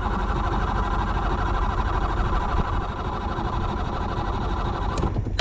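Pull-start outboard motor running unevenly for about five seconds, then cutting out suddenly near the end. The owners suspect it is flooded.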